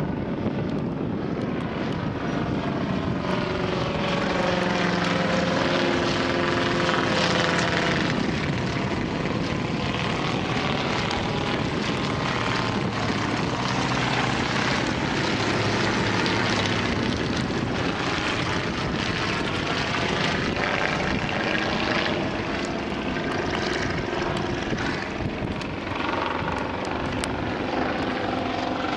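Propeller engines of World War One replica aircraft, among them a Fokker Dr.I triplane replica, droning overhead as they fly past, the engine note sliding up and down in pitch with each pass.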